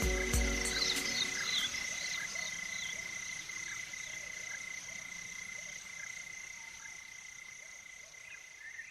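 An outdoor chorus of animal calls: many short, repeated chirps over steady high-pitched trills, typical of frogs and insects at night. The last notes of the music end just after the start, and the chorus slowly fades out.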